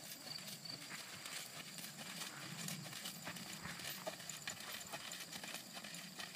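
Hoofbeats of an American Paint Horse moving at a slow gait under a rider on sand arena footing: a run of soft, irregular clip-clops.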